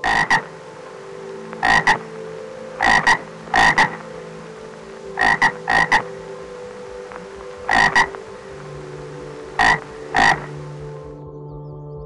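Frog croaking: short, sharp croaks, mostly in quick pairs, repeated every second or two over a steady low background hum.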